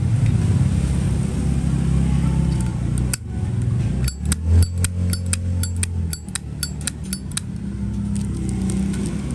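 Zippo lighter being handled: a quick run of about a dozen sharp metallic clicks over some four seconds, typical of its hinged lid being snapped open and shut. A steady low traffic rumble runs underneath.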